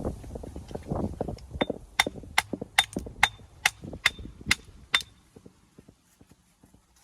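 A hammer striking stone eight times in a steady rhythm, about two blows a second, each with a short metallic ring, as stone is shaped for the wall. Before the blows come low knocks and rumbling.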